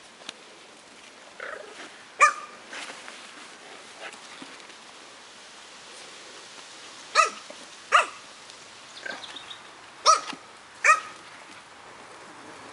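Chihuahua puppies giving short, high-pitched yaps while play-fighting: one about two seconds in, then two pairs of sharp yaps about seven and ten seconds in, with a few fainter yips between.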